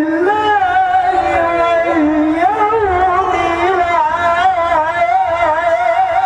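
A man's solo voice reciting the Qur'an in the melodic mujawwad style. He holds one long, unbroken melisma whose pitch winds up and down in close ornaments.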